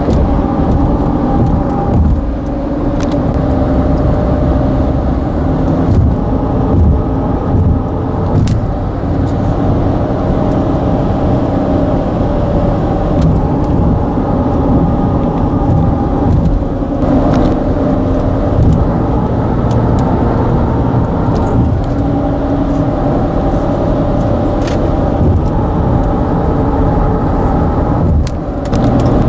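Road bridge deck vibrating under passing traffic: a loud, steady droning hum made of several held tones over a dense rumble, with occasional sharp clicks. The tone pattern shifts abruptly a few times.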